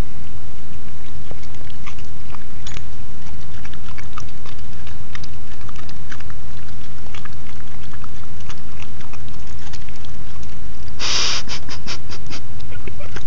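A puppy chewing a grub in the grass: small scattered clicks of mouth and teeth over a steady low rumble. About eleven seconds in there is a short, loud burst of rushing noise, followed by a quick run of clicks.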